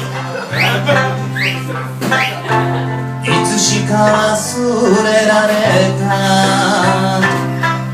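Live band playing the instrumental introduction of an Okinawan-style song, with a plucked sanshin over steady bass notes. Quick rising whistles sound during the first second or so.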